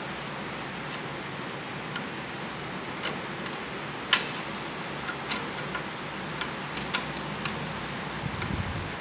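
Steel spanner clicking against a nut on a lathe as it is fitted, turned and re-seated to tighten the nut: a scattered run of light metallic ticks, with one sharper click about four seconds in, over a steady hiss.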